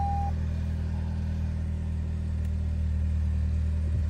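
Toyota Camry engine idling at about 1000 rpm, heard inside the cabin as a steady low hum.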